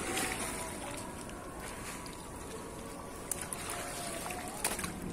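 Shallow seawater trickling and sloshing around rocks as a person wades barefoot through it, with a few light knocks near the end.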